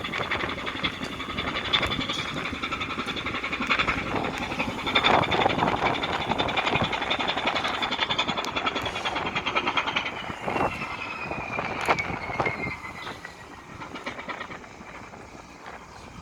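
A 498-ton gravel carrier's ship engine running as the vessel comes into port, mixed with strong wind buffeting the microphone. A high whine in the engine noise slides down in pitch from about ten seconds in, and the sound grows quieter near the end.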